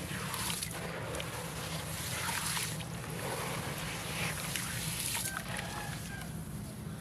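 Dry concrete crumble being dipped in water: wet sloshing and trickling mixed with gritty crackles from the pieces, in repeated swells, over a steady low hum.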